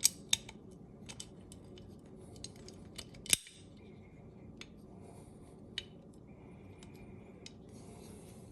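Sharp metallic clicks and taps of AR-15 fire-control parts, the hammer and its pin, being worked into a lower receiver. The clicks are scattered and irregular, the loudest about three seconds in.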